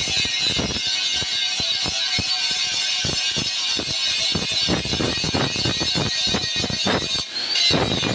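Quick, irregular hammer blows on metal, several strikes a second, over a steady high whine: hoe blades being hammered out at a blacksmith's forge.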